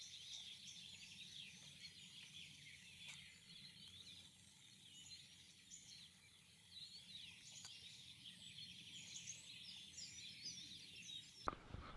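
Faint chorus of small songbirds chirping and singing, with many short high chirps overlapping over a low steady hum, until it cuts off abruptly near the end.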